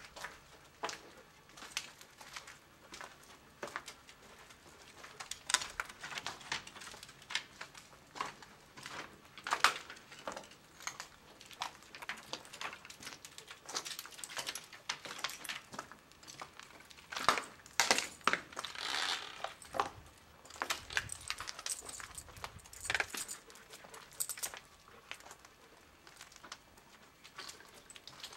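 Irregular crunching and clicking of footsteps over broken plaster and debris on a floor, loudest about two-thirds of the way through.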